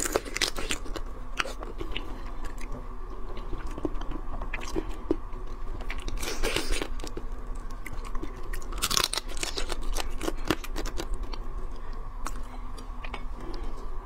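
Close-miked crunching and chewing as a person bites into pieces of crab in chilli sauce, the shell cracking in sharp clicks throughout. There are louder, longer bursts of crunching about six and nine seconds in.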